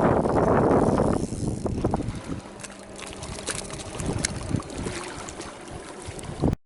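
Wind buffeting the microphone, loud for about the first second and then dying down, followed by scattered small clicks and knocks of handling; the sound cuts off suddenly near the end.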